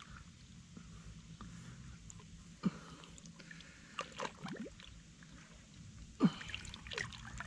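Faint water trickling and sloshing, with a few short sliding sounds about three, four and six seconds in.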